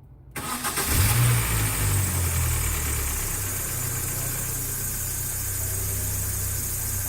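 2004 Mini Cooper's 1.6-litre four-cylinder engine started: the starter cranks, the engine catches about a second in with a brief rise in revs, then settles into a steady idle. This is the first start after an oil change, run to circulate the fresh oil.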